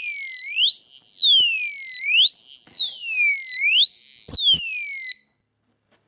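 The built-in siren of a Kabros bicycle cable alarm lock going off, pretty loud, wailing up and down in pitch about every second and a half. There are a few clicks of handling, and it cuts off suddenly about five seconds in.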